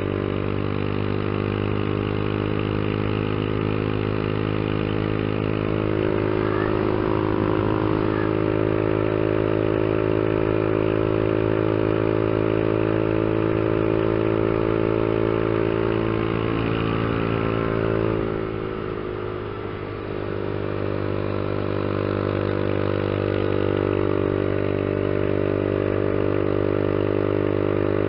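Honda CG 150 Fan's single-cylinder four-stroke engine running steadily under throttle at road speed, heard from the rider's seat. About two-thirds of the way through, the engine note drops briefly and then picks back up.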